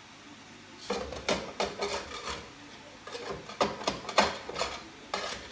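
Cookware and utensils being handled at the stove: a run of irregular clattering knocks and scrapes, starting about a second in and stopping near the end.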